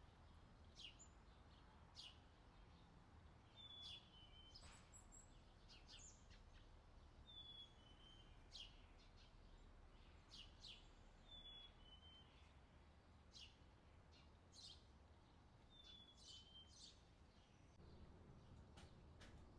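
Faint summer birdsong: one bird repeats a short two-note falling call about every four seconds, among quick sharp chirps from other birds, over a low steady background hum.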